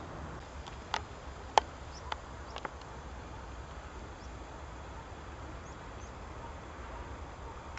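Open-air ambience on a golf course: a steady low rumble and hiss, with a few short sharp clicks in the first three seconds, the loudest about a second and a half in, and a few faint high chirps around the middle.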